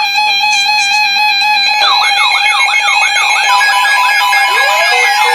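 Background music: held steady tones, joined about two seconds in by a fast repeating warbling figure.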